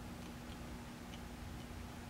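Faint scattered light ticks and clicks of fingers handling small wire pins, connectors and heat-shrink tubing on a motorcycle wiring harness, over a steady low hum.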